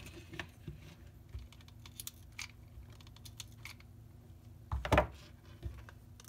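Light clicks and taps of a popsicle-stick mousetrap-car frame, wooden dowel axle and plastic jar-lid wheels being handled on a desk, with a louder knock about five seconds in.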